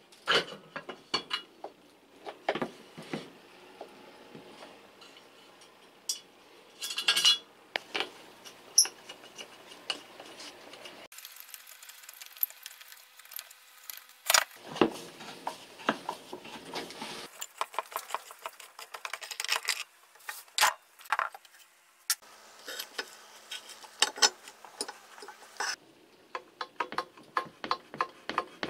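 Metal parts of a Makita 1800 electric hand planer clinking, clicking and knocking as it is handled and taken apart by hand. The sound comes in several stretches joined by cuts, with the clicks coming fast in places.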